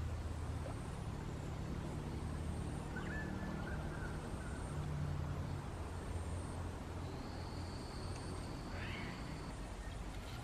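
Outdoor bush ambience: a steady low hum with a few faint high bird calls and whistles, including a held whistle in the second half and a rising call near the end.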